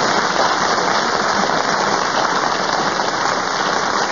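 Studio audience applauding and laughing at a punchline: a loud, steady wash of clapping.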